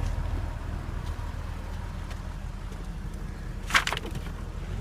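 2003 Porsche Boxster's flat-six engine idling steadily at the exhaust, with a single sharp clack a little under four seconds in.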